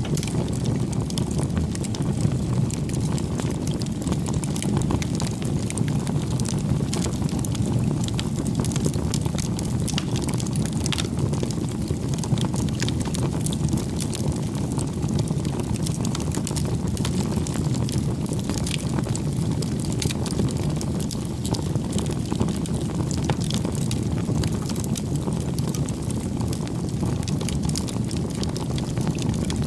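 Campfire burning: a steady low rumble of flames with frequent irregular crackles and pops of burning wood.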